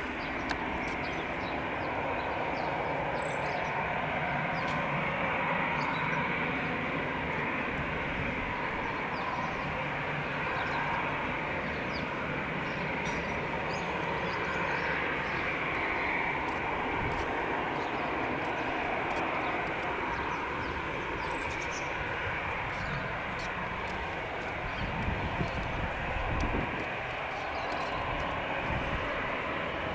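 Airbus A319 jet engines running steadily, a continuous rushing hum over a low rumble, with a brief swell in the rumble near the end.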